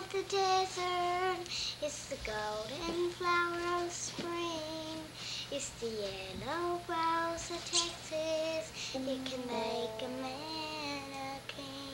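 A young girl singing unaccompanied, a slow tune of held notes that slide up or down into each other.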